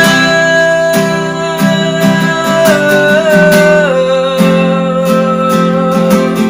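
Acoustic guitar strumming steadily under a long held sung note, the closing "love" of a worship song. The note steps down in pitch about four seconds in.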